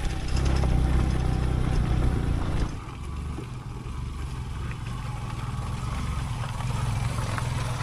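A motor vehicle's engine running on the move, with a strong low rumble that drops suddenly to a quieter, steadier run about two and a half seconds in.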